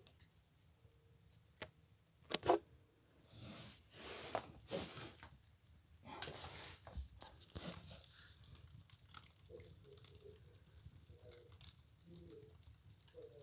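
A few sharp clicks and knocks, then paper rustling and tearing for about four seconds as a fireplace fire is laid and lit, followed by a faint, repeated low pulsing sound.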